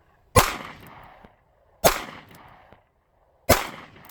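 Three shots from a small .22 Magnum revolver, fired about a second and a half apart. Each sharp crack is followed by a short echo that dies away.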